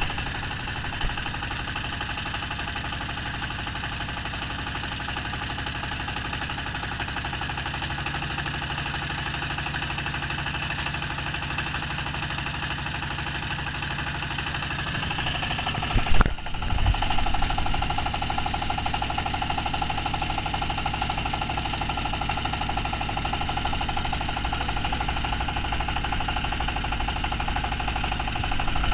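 A wooden river boat's engine running steadily under way, loud and close, with wind and water rushing past. The sound cuts abruptly about sixteen seconds in to the engine again, now with a steady whine over it.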